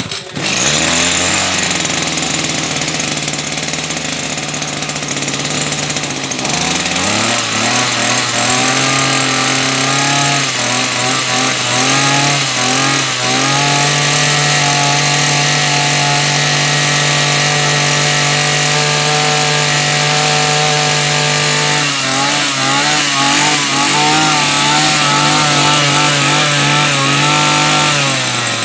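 Maruyama 320 square-head two-stroke brush cutter engine starting and idling low for about six seconds, then revved up. It surges unevenly, holds a steady high speed for several seconds, drops about two-thirds of the way through, then revs in uneven bursts again.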